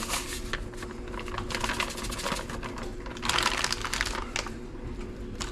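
Quick light clicks and taps with a denser rustling burst about three seconds in, from catfish pieces being dredged in seasoned fish-fry breading, over a faint steady hum.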